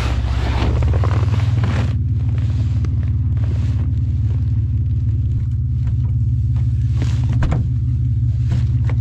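Toyota Tacoma pickup's engine running under load, heard from the open truck bed, its pitch stepping up about a second in as it pulls harder. Bursts of rushing noise come and go over the engine.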